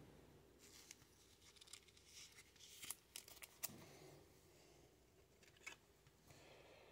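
Near silence, with a few faint soft ticks and rustles of a thin plastic penny sleeve as a trading card is slid into it and handled, most of them between about one and four seconds in.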